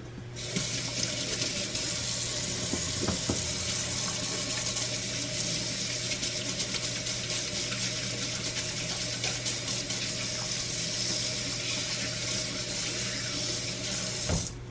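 Kitchen tap running a steady stream of water into a sink, turned on about half a second in and shut off near the end.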